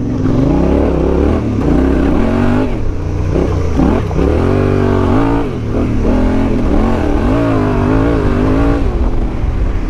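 Yamaha Ténéré 700's parallel-twin engine being ridden along a dirt track, its pitch rising and falling repeatedly with the throttle.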